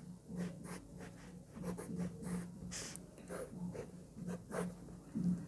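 Pen scratching on paper in a run of short, quick strokes, as boxes are drawn around written equations.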